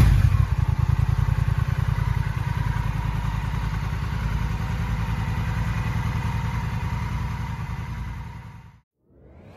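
Honda Rebel 1100 DCT's parallel-twin engine settling from a throttle blip back to a steady idle, with an even exhaust pulse. The sound fades out about a second before the end.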